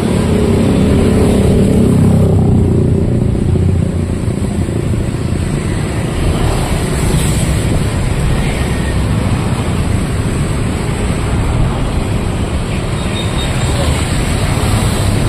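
Street traffic: motorcycles and cars passing in a steady stream, with one louder vehicle going by in the first few seconds.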